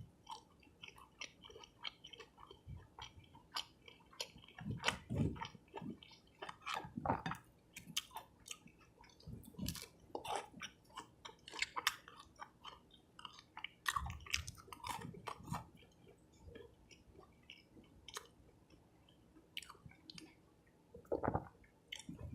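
Close-miked chewing and biting of a cheese fish sub and fries, with many irregular small wet mouth clicks and crunches.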